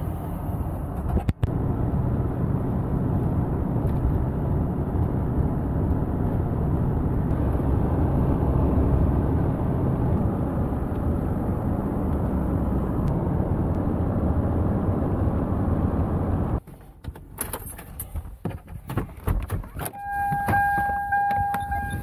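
Steady road and engine noise inside a pickup truck's cab while driving. After a cut about three-quarters of the way through come scattered clicks and handling noises, then the driver's door opens and the truck's door-open warning sounds a steady tone near the end.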